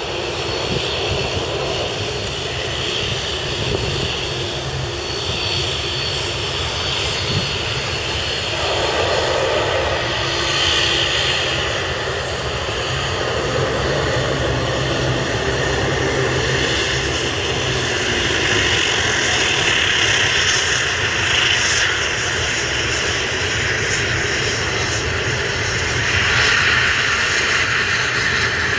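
Airbus A330's twin jet engines running at low thrust as the airliner taxis: a steady whine over a low rumble that grows somewhat louder toward the end.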